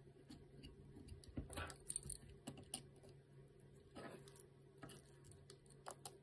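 Faint, irregular clicks and taps of hands handling 3D-printed plastic robot-arm parts, servo wiring and a small screwdriver, a few louder taps between one and two seconds in and again near four seconds, over a faint low hum.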